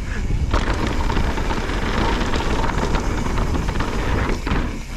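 A mountain bike riding fast down a dirt trail: wind rushing over the microphone with a heavy rumble, and the tyres and bike rattling over the ground, picking up sharply about half a second in.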